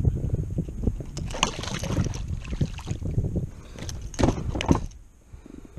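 Water splashing and knocks as a redfish is hauled from the water by hand and lifted into a kayak, with two sharp knocks a little after four seconds in, over a low rumble of wind on the microphone.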